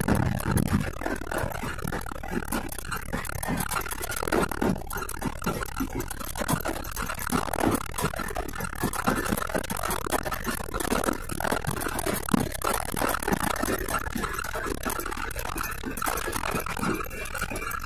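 Inside the cab of an old Mitsubishi Fuso dump truck driving loaded with sand: steady engine and road noise with many small rattles.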